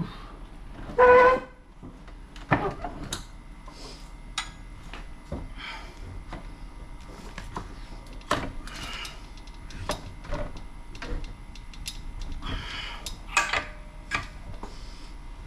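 A short, loud squeal about a second in, like a stuck metal part or fastener being forced, followed by scattered clicks and knocks of tools and metal parts being handled.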